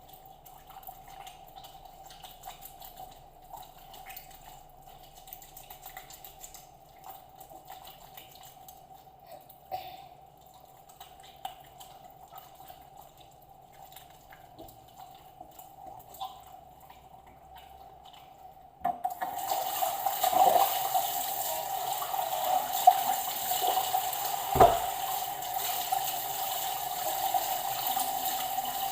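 Small quiet handling clicks over a faint steady hum, then about two-thirds of the way in a kitchen tap is turned on and water runs steadily into the sink, with one sharp knock partway through the running water.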